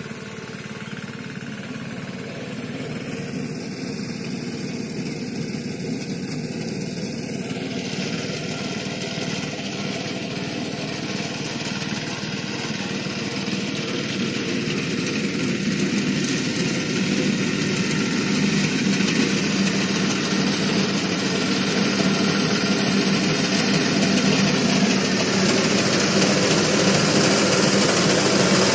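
BCS reaper's engine running steadily while the machine cuts paddy, growing steadily louder as it comes closer.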